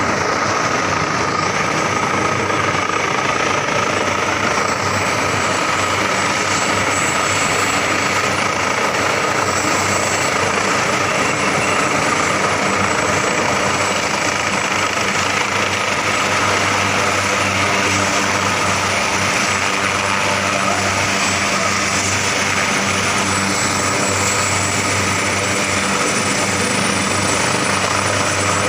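Helicopter running, a steady loud noise with a thin high whine; a low hum grows stronger about halfway through.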